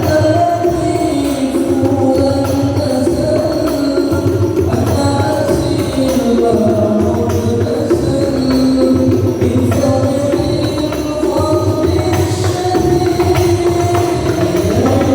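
Sholawat devotional music at loud volume through a sound system: a wavering sung melody over steady hand-drum and tambourine percussion.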